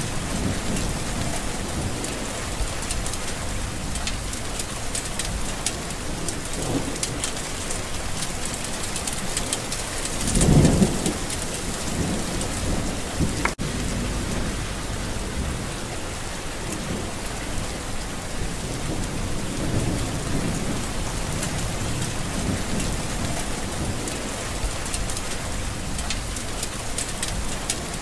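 Steady heavy rain in a windy storm, with a short low rumble swelling up about ten seconds in.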